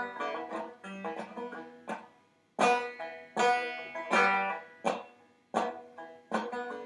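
1922 John Grey four-string tenor banjo strummed in chords, a choppy sound: each chord starts sharply, rings briefly and dies away, with short gaps between strokes.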